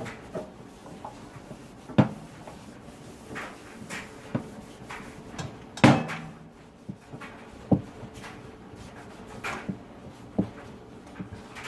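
Irregular knocks and clunks, about seven of them with the loudest near the middle, as the toaster oven is handled and wiped down.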